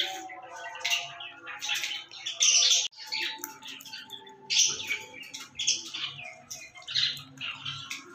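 Caged rose-ringed parakeets chirping and squawking, with many short, high calls following one another quickly.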